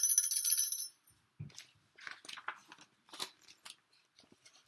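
A small jingle bell shaken and jingling for about a second, then a few faint soft taps and rustles.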